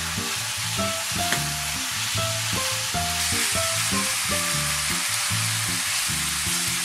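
Liver and grated carrots sizzling in a hot frying pan as a spatula stirs them through, the hiss growing a little stronger about three seconds in. Soft background music plays underneath.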